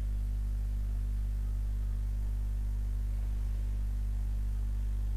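Steady low electrical hum with its evenly spaced overtones, the mains hum picked up in the microphone recording, over a faint hiss.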